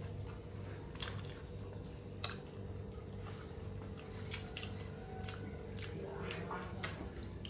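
A person eating, biting and chewing, with scattered soft clicks and smacks about every half second to a second over a steady low hum.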